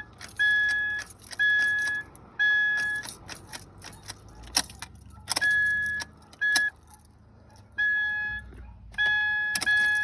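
A car's electronic warning chime beeping, one steady tone each time, about once a second with a few irregular gaps. Keys rattle and click in between, loudest in the middle.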